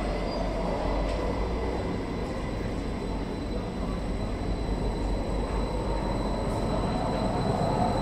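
Metro train at a station platform, a steady rumbling run on the rails; near the end it grows a little louder as a tone rises.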